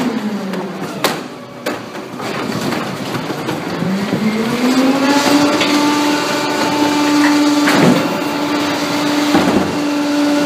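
Pak-Mor rear-loader recycling truck's engine and hydraulics whining, dropping in pitch just after the start and throttling back up after about four seconds as the cart tipper lifts and dumps a plastic recycling cart. Several sharp clanks of the cart and lift against the hopper.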